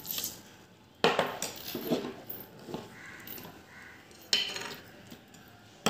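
Steel spoon clinking against a mixer jar and sugar cup while a spoonful of sugar is added to cut strawberries: two sharp knocks, about a second in and just past four seconds, with lighter clinks between.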